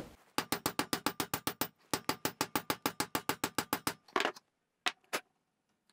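A claw hammer tapping quickly on a steel pipe that rests on a ball bearing's inner race, driving the bearing down the 25 mm rotor shaft of an induction motor until it is fully seated. About eight light metallic taps a second in two runs with a short break, then three slower taps near the end.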